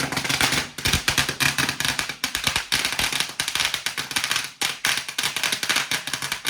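Fireworks crackling close by: a dense, unbroken run of rapid sharp pops.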